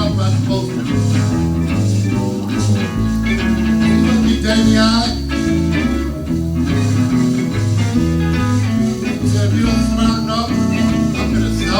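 Blues music: guitar playing over a stepping bass line.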